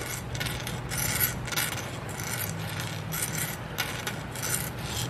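Hand file rasping across the end of a steel piston ring in a steady run of short strokes, slow and steady, filing the ring's end gap open towards 22 thousandths.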